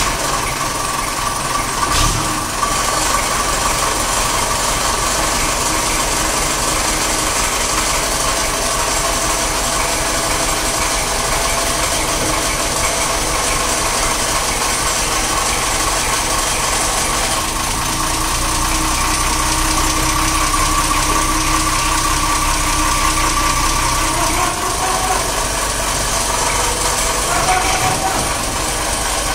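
1942 Ford truck engine running steadily just after being started, with a mechanical clatter over the hum. Its pitch rises once near the end as it is revved.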